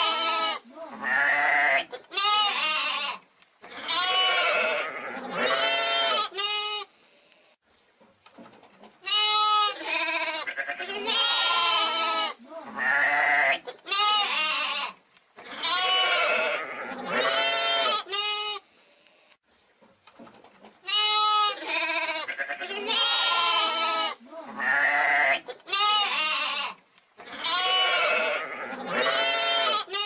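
Young sheep bleating again and again in quavering calls about a second long each, in runs of several calls, falling silent twice for about two seconds.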